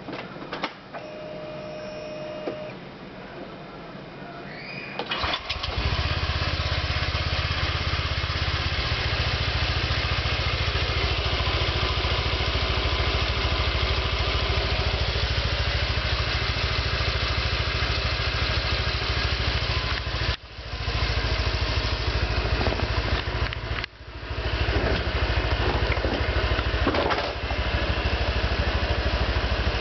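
A Honda Vario 125 PGM-FI scooter engine starts about five seconds in and then runs steadily and fairly loud, with brief drops in level about 20 and 24 seconds in. The engine has a new ignition coil and spark plug and a wider stainless-steel muffler neck, and it is being checked for its known "snore" sound.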